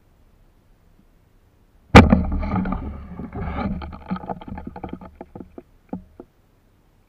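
A sudden splash in shallow seawater about two seconds in, followed by sloshing and crackling water with quick drips and ticks that die away over about four seconds.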